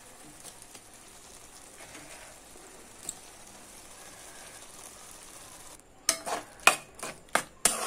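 Tomato-onion masala in a frying pan, a faint steady sizzle as it cooks. About six seconds in comes a quick run of sharp metal clinks and knocks against the pan as the cucumber pieces go in and are worked with a spoon.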